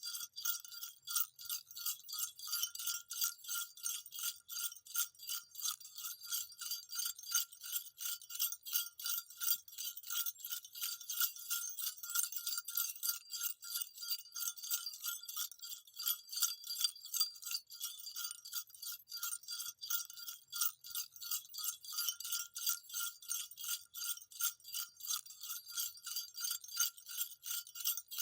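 Small jingle bells shaken continuously in a steady, quick rhythm, each shake a bright metallic jingle with a constant ring underneath.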